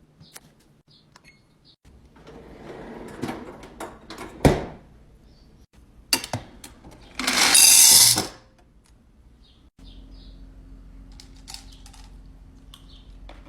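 Food packaging and containers being handled while restocking a fridge: rustling, a sharp click about four and a half seconds in, a loud rushing noise for about a second near the eight-second mark, then a steady low hum.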